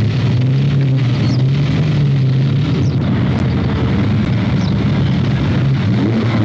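Ferrari sports car engines running at low revs as the cars move slowly past, a steady deep exhaust note. About halfway through the note turns rougher and less even.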